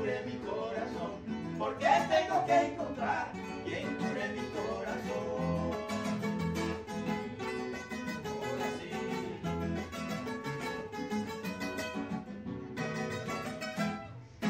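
Three acoustic guitars playing together in a paseo rhythm, strummed chords under picked melody lines.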